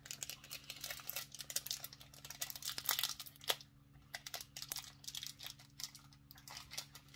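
Crinkly candy wrapper being handled and torn open, a dense run of irregular crackles and rustles.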